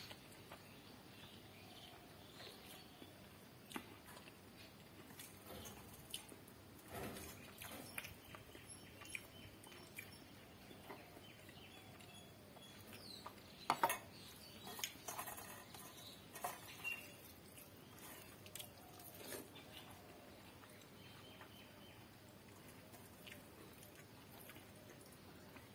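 Faint close-up eating sounds: chewing and lip-smacking, and fingers mixing rice and curry on a steel plate, with a cluster of sharper clicks and knocks about halfway through.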